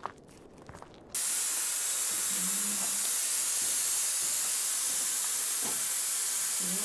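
A few soft steps, then about a second in the compressed air of a pneumatic rock drill cuts in suddenly: a loud, steady hiss that carries on unbroken.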